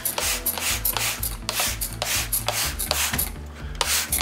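A stiff brush scrubbing in quick, even strokes, about three a second, with a short pause near the end.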